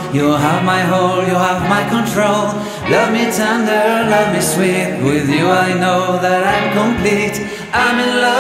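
Background music: a song with a sung vocal line.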